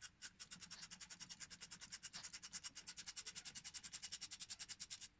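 Ratchet wrench clicking rapidly and evenly, about ten clicks a second, as the 13 mm cam belt tensioner nut is undone to release the timing belt's tension; the clicks grow louder in the second half and stop just before the end.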